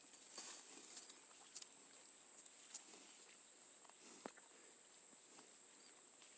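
Faint, scattered soft knocks of cattle hooves stepping on the ground, a few seconds apart, over a steady high hiss.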